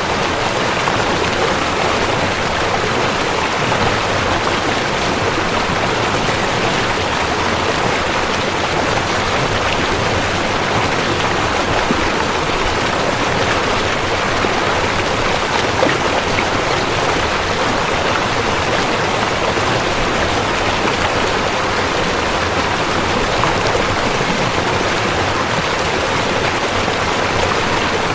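A rushing river: water running with a steady, even rush that does not change.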